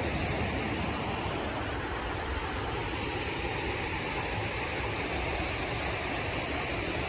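Artificial rock waterfalls pouring into a lagoon pool, a steady, even rush of falling water.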